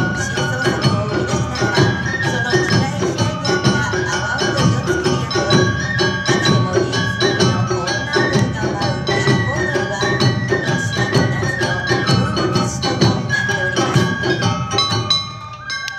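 Awa Odori festival accompaniment: a high melody, typical of the shinobue bamboo flute, over a steady beat of drums and percussion. The music thins out near the end.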